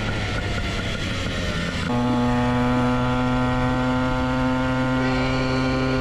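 Gas pocket bike's small engine running hard under throttle, extremely loud, with wind noise. About two seconds in, a rougher, weaker engine note gives way to a steady held drone.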